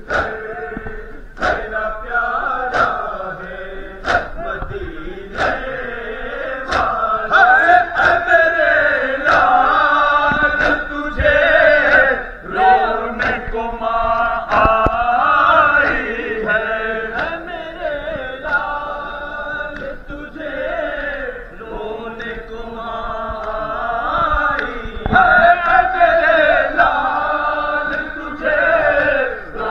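A crowd of men chanting a Muharram nauha together, with sharp chest-beating slaps of matam in time, about one every second and a half. The slaps are clearest in the first several seconds.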